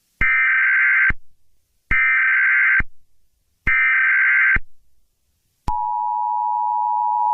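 Emergency Alert System tones: three short bursts of the SAME header data screech, each just under a second long, with brief gaps between them. About five and a half seconds in, the steady two-tone EAS attention signal starts and holds, the signal that an emergency message is about to be read.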